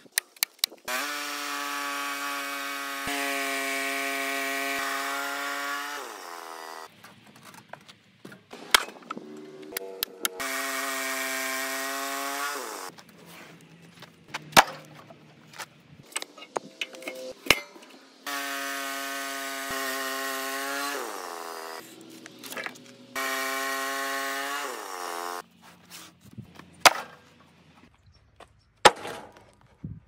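Woodland Mills portable bandsaw sawmill sawing through a log in four spells of a few seconds each: a steady high machine whine from the engine and blade that falls in pitch as each run winds down. Between the runs come sharp knocks and thuds of wooden slabs being handled.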